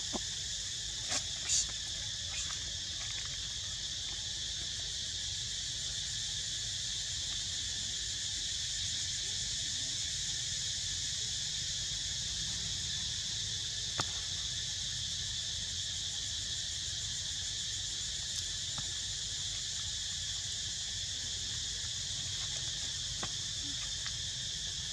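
Steady insect chorus, a continuous high buzzing with no let-up, with a few faint short clicks.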